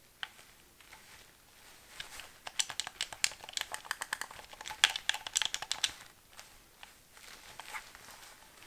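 White Xbox wireless controller's buttons and thumbsticks being pressed by gloved hands: a few single clicks, then a dense run of rapid clicks for about four seconds like button-mashing, then a few more clicks near the end.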